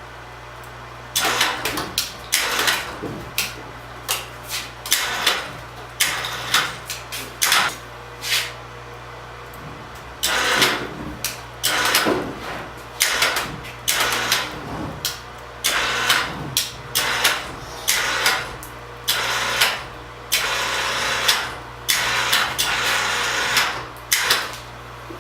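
Overhead crane winch motor run in many short on-off bursts, under load as it lifts and turns over a heavy steel sawmill frame, over a steady low hum.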